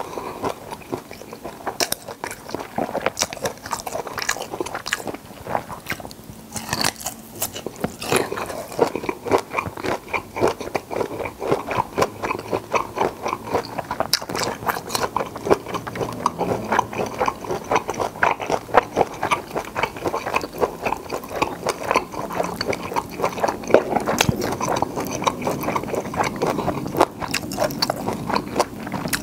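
Close-miked chewing and biting of black tiger shrimp meat: a steady run of wet mouth clicks and smacks with some soft crunching.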